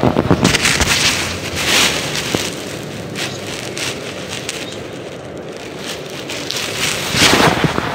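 An even hiss of noise with no speech, swelling briefly a few times and quieter in the middle.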